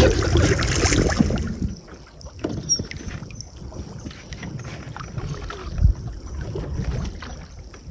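Canoe on calm water: a loud rush of wind on the microphone that drops away sharply after about a second and a half, then quieter water sounds and paddle strokes with scattered light knocks, one louder knock near the end.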